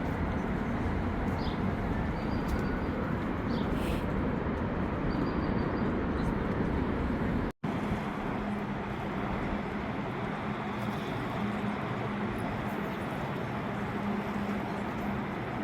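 Steady outdoor city noise of traffic, with a low rumble. About halfway through it cuts off abruptly for an instant, and after that a low hum comes and goes over the same street noise.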